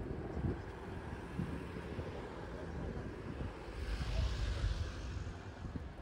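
Wind buffeting the microphone with a gusty low rumble, and a swell of hissing wash about four seconds in.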